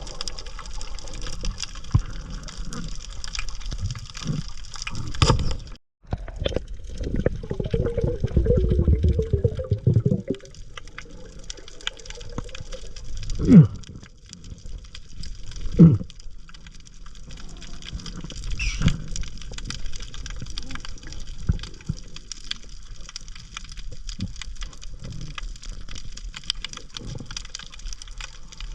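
Water noise around a diver's camera, with a brief break about six seconds in and a few sharp knocks later on.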